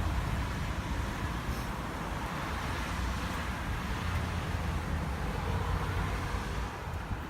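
Road traffic noise: a steady rumble and hiss of passing motor vehicles that swells a little in the middle and eases off near the end.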